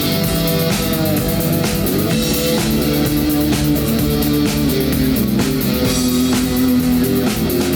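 Rock band playing an instrumental passage: guitars holding melody notes over bass and a steady drum kit beat.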